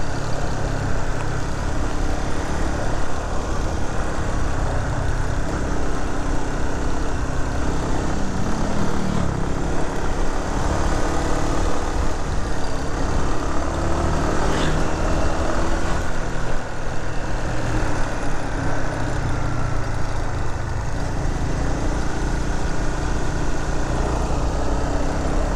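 Motorcycle engine running under way, with steady wind and road noise. The engine pitch rises and falls a few times as the speed changes.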